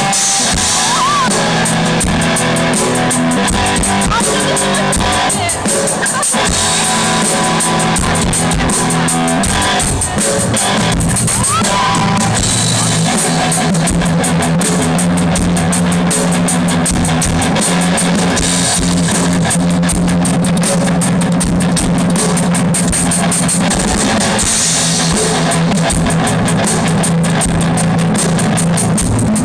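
Rock band with drum kit and guitar playing loud, continuous music through a concert sound system during a sound check.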